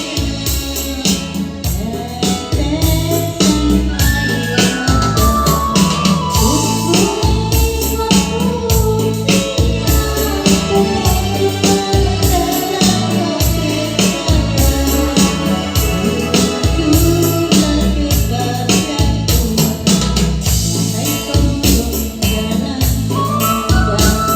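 Music with a steady, evenly repeating bass beat and a melody line above it.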